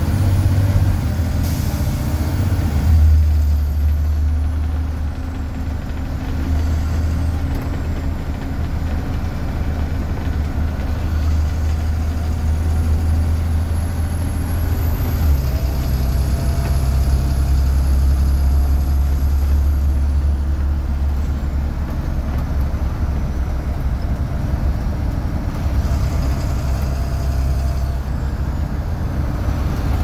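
2004 Blue Bird 3800 school bus with a DT466E inline-six turbo-diesel, heard from inside the cab while driving. A steady low engine drone changes in step about three seconds in and again about fifteen seconds in, with a short hiss about a second and a half in.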